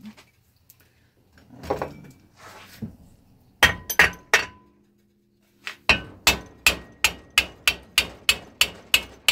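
Hammer tapping on the cylinder's motor mount of a Kawasaki KV75 two-stroke engine to loosen the cylinder off its studs. There are three sharp knocks about halfway in, then a steady run of about a dozen taps at roughly three a second.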